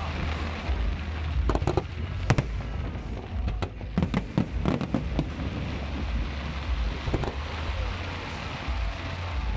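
Aerial firework shells bursting in rapid, irregular succession, sharp bangs over a continuous low rumble.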